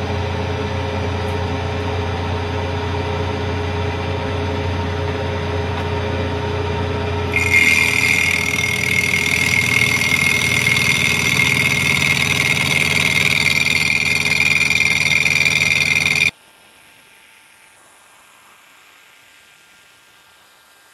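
Vertical milling machine running, its end mill cutting the aluminium intake manifold. About seven seconds in the cut grows louder with a steady high-pitched whine. A few seconds before the end the sound cuts off abruptly, leaving only a faint hum.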